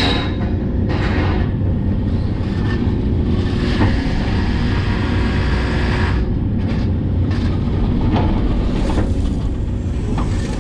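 Hitachi 130LCN excavator running, a steady low diesel rumble with a hum that drops out about six seconds in. Several short knocks and clatters come through it.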